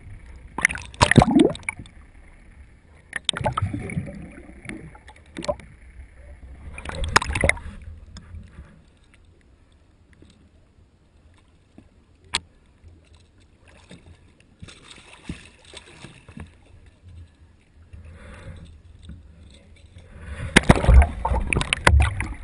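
Sea water rushing and splashing around a gaff-mounted camera as it moves in and out of the water with a gaffed tuna, heard in irregular surges. It is loud in the first seconds, drops to a quieter stretch with one sharp click near the middle, and surges again near the end.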